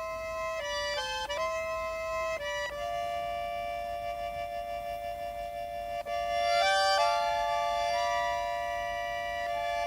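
Russian garmon (button accordion) playing a slow solo melody of long held notes, with quick ornamental runs about a second in and again near seven seconds, where it grows louder.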